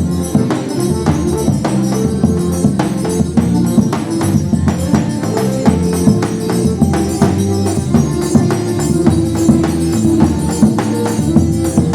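A forró trio playing live: a sustained melody on accordion over regular zabumba drum beats and jingling metallic percussion, in a steady dance rhythm.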